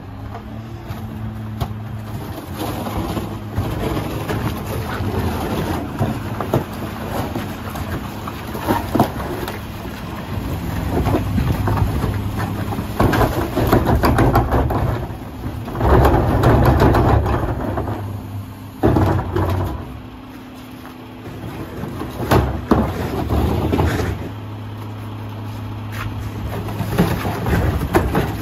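Mack LR rear-loader garbage truck idling steadily, with sharp clanks from carts and hopper hardware. Its McNeilus packer runs through its cycle with the engine revved up, loudest a little past halfway.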